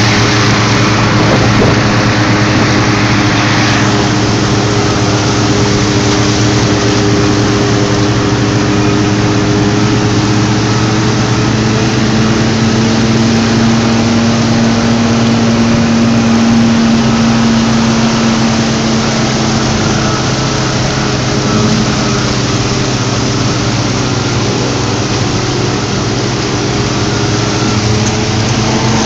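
Engine of a moving road vehicle running steadily, its hum drifting slowly up and down in pitch, over a steady rush of road and wind noise.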